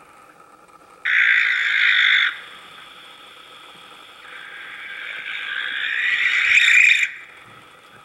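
Barn owl giving harsh, hissing screech calls: a short one starting abruptly about a second in, then a longer one that grows steadily louder and cuts off sharply near the end.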